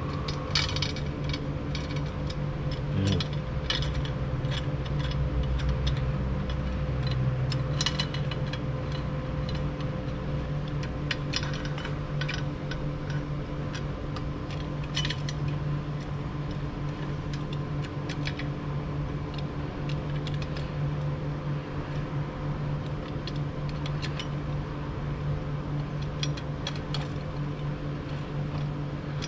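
Scattered metal clinks and taps of hand tools and bolts as the crankshaft cover (lower block) is fitted onto a Mazda BT-50 2.2 engine, at irregular times, over a steady hum.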